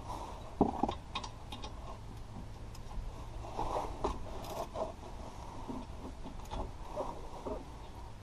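Hand-work noises on a car's front brake caliper: scattered metallic clicks and clunks of a socket tool and caliper parts being handled, with a sharper knock about half a second in. A steady low hum runs underneath.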